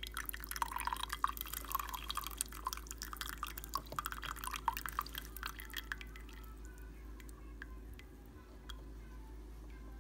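Keurig brewer finishing a brew: coffee spattering and trickling from the spout into a ceramic mug, thinning to scattered single drips about six seconds in.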